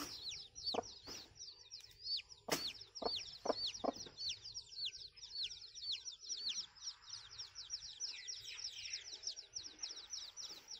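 Hatching chick peeping from a pipped chicken egg: a steady run of short, high, downward-sliding peeps, several a second. A few sharp knocks come in the first four seconds.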